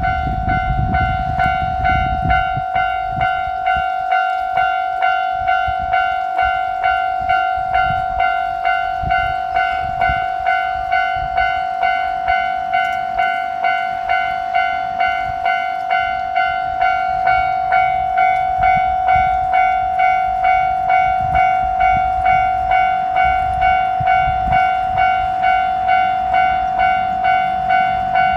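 Japanese level-crossing warning bell ringing, a steady electronic ding repeating about twice a second. A low rumble is heard near the start and again at the very end.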